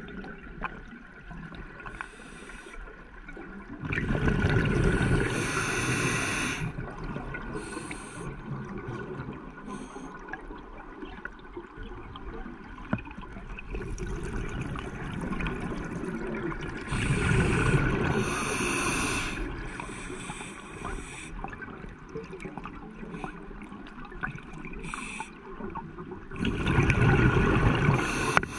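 A scuba diver breathing through a regulator underwater: three loud bubbling exhalations, about 4 seconds in, about 17 seconds in and near the end, with fainter hissing between them.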